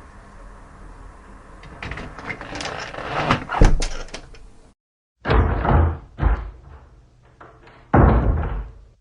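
A door being worked: rattling clicks of the handle and latch building to a hard shut about three and a half seconds in. After a sudden cut, a second recording of a door with three heavy thuds, the last near the end.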